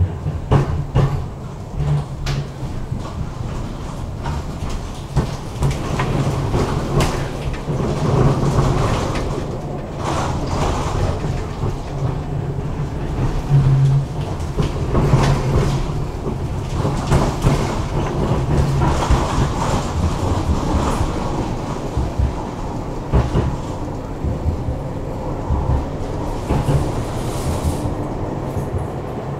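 Tram running along its track: a steady rumble of wheels on rails, with frequent short clicks and knocks.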